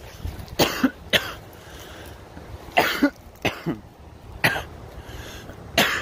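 A person coughing repeatedly, a series of about eight short, hacking coughs in small clusters.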